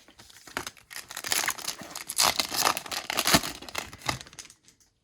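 Foil Yu-Gi-Oh booster-pack wrapper crinkling and tearing as it is opened by hand, a dense crackle that dies away about four and a half seconds in.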